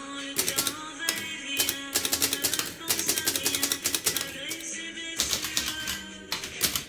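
Vintage Smith Corona manual typewriter being typed on quickly: runs of sharp key strikes with short pauses between them, over background music.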